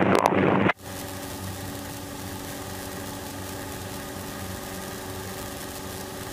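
Single-engine light airplane's piston engine running steadily at climb power, a constant drone heard inside the cockpit. A radio call in the headset breaks off abruptly just under a second in, leaving only the engine.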